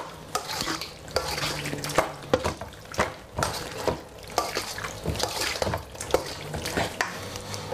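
Metal fork stirring diced raw chicken in green curry marinade in a stainless steel bowl: wet scraping and squelching, with sharp clinks of metal on the bowl about once or twice a second.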